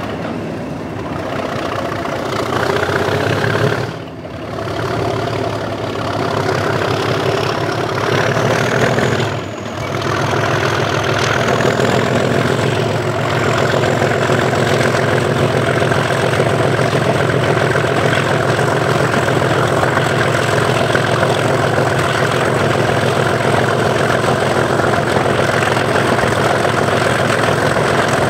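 Class 37 locomotive's English Electric V12 diesel working hard under power (the 'thrash' enthusiasts ride for), with wind rush on the window. The engine sound dips briefly twice, about four and nine seconds in, then builds and holds steady. A high turbocharger whistle climbs over the first dozen seconds and then stays at one pitch.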